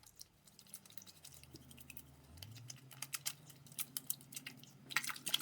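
Hands being washed at a kitchen sink: a low hum of the water pipes that rises in pitch about two seconds in, many scattered clicks and drips, and a louder splash of running water near the end.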